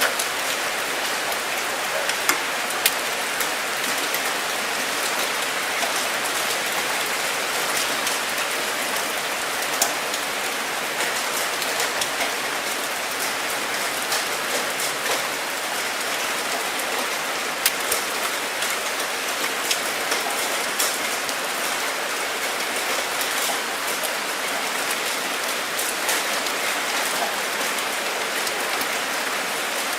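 Steady rain falling, an even hiss with scattered sharper drop impacts ticking throughout.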